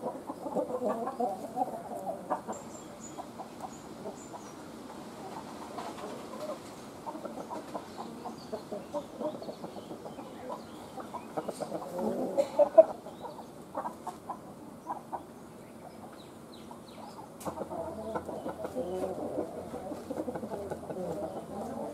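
Chickens clucking and calling on and off, with the loudest call about thirteen seconds in.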